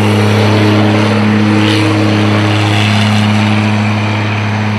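MAN race truck's diesel engine held at steady high revs while it spins donuts, its rear tyres spinning and smoking on the tarmac. The engine note stays at one pitch, with a rush of tyre noise over it.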